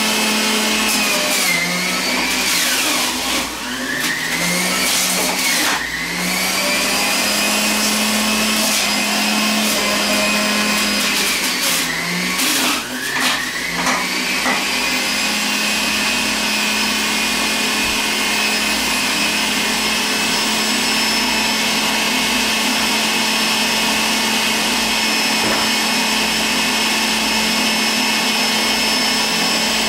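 Electric centrifugal juicer running with a steady motor whine. Its pitch sags a few times in the first half as celery and greens are pushed down the feed chute and load the motor, with a few knocks, then it holds steady as it spins on unloaded.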